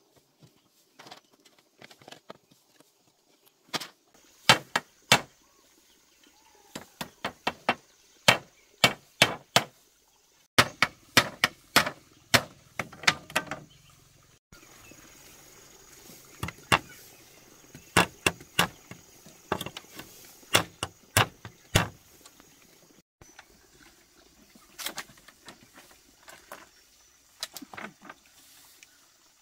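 Repeated sharp strikes of a tool on wood, in runs of several blows about two or three a second with short pauses between, as a dog kennel is being built.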